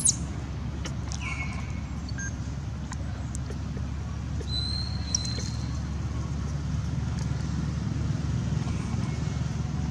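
Baby long-tailed macaque giving a brief shrill squeal at the start, a short falling cry about a second in and a thin high call about four and a half seconds in, over a steady low rumble.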